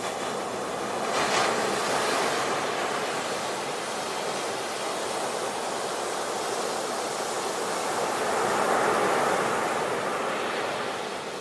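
Sea waves breaking and washing up a beach, a steady hiss of surf that swells louder twice, about a second in and again near the end.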